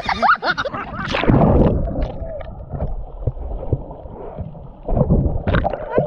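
Sea water sloshing and splashing around a camera held at the waterline, surging loudest about a second in and again near the end, with a low rumble of water and wind on the microphone.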